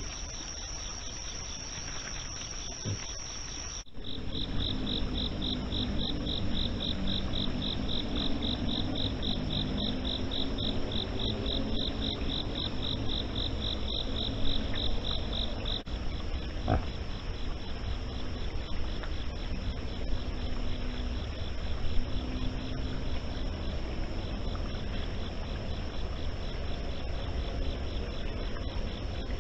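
Night insects chirping, crickets among them: a steady high trill, then after a cut about four seconds in a fast pulsing chirp that stops about halfway through, over a low rumbling noise.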